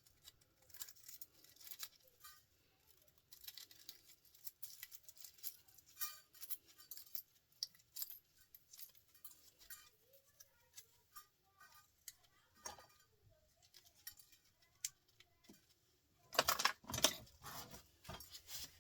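Faint, scattered clicks and light metallic clinks of small copper scrap and wire being handled and sorted, with a louder cluster of clicks about three quarters of the way through.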